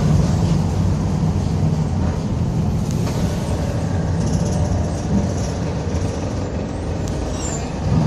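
Mercedes-Benz OF-1722M bus under way, its engine and drivetrain giving a steady low drone with the differential growling. The drone eases off a little in the second half.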